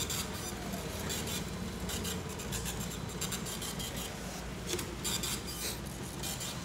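Queue-ticket machine's printer printing and feeding out a paper queue ticket, in a run of short bursts.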